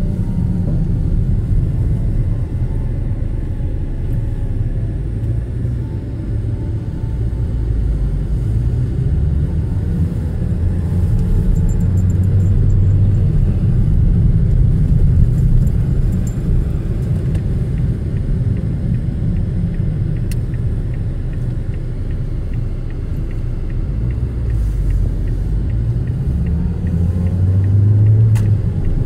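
Steady low rumble of a car's engine and tyres heard from inside the cabin while driving slowly, swelling a little about halfway through and again near the end.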